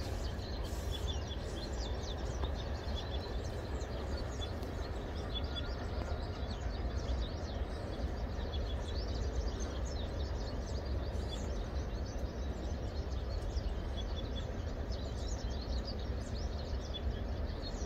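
Outdoor ambience: a steady low rumble with many small birds chirping faintly throughout.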